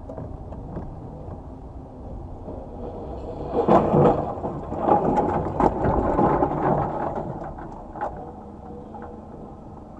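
Low rumbling vehicle noise, with a loud burst of clattering knocks and bangs from about four to seven seconds in and a single knock near the end.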